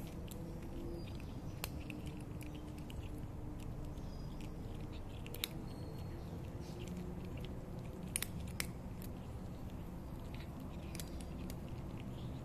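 A cat chewing dry kibble, with scattered sharp crunches, a few louder ones about five and eight seconds in, over a steady low background noise.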